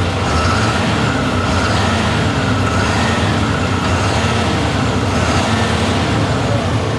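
Fendt 936 tractor's Deutz six-cylinder diesel engine running steadily under load, its note drifting slightly up and down. The intermittent misfire being looked for does not show at this moment.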